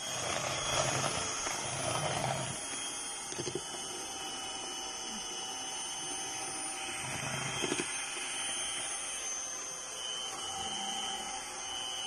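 Electric hand mixer running with a steady motor whine, its beaters whipping egg whites into meringue in a plastic bowl.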